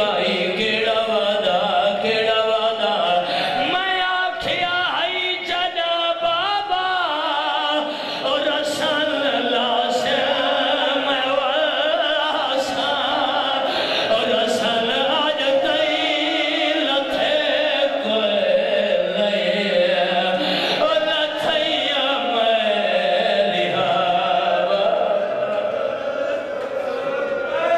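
A man chanting a mourning elegy for the Karbala martyrs over a microphone in a melodic, wavering lament, mixed with many men's voices wailing along in grief.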